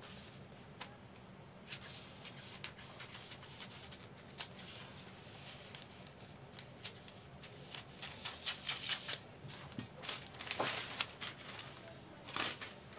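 Scissors cutting through folded newspaper: faint crisp snips and paper rustles, scattered at first and coming thick and fast in the second half.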